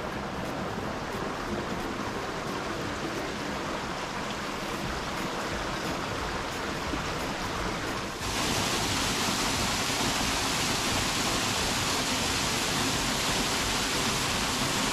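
Small stream flowing over stones, a steady wash of water. About eight seconds in it gives way abruptly to the louder, hissier rush of a waterfall splashing into a pool.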